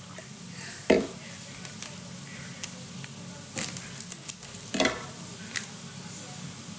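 A cup and spoon being handled and stirred: short sharp clinks and rustles over a steady faint hiss, with one louder knock about a second in and a run of clicks about four to five seconds in.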